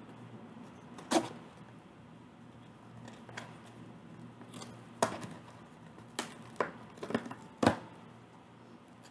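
Packaging being handled as a box is opened and unpacked: a series of short, sharp rustles and clicks, the loudest about a second in, at about five seconds and near the end, over a faint steady hum.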